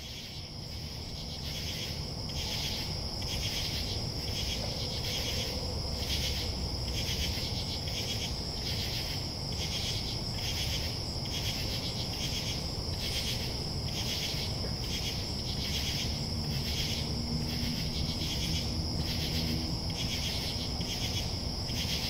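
Night insect chorus of crickets and other singing insects: a steady high-pitched trill under a rhythmic pulsing chorus that beats about one and a half times a second, over a low rumble. It swells up over the first two seconds, then holds steady.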